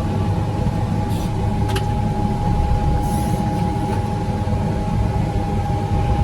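Farm loader engine running steadily under a low rumble, with a steady high whine over it, while it pushes grain with a big grain bucket. A couple of sharp clicks come about a second in.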